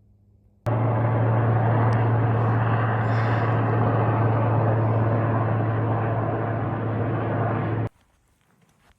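Helicopter engine and rotor noise, a steady loud drone with a strong low hum, starting suddenly under a second in and cutting off about a second before the end.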